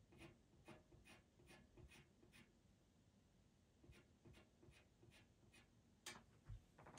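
Pastel pencil scratching on Pastelmat paper in short, quick strokes, about two to three a second, in two runs with a pause between. Near the end comes one sharper scrape and a soft thump.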